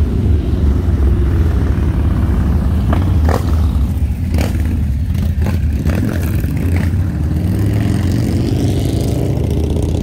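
A group of motorcycles riding past, their engines making a loud, deep rumble with some revving.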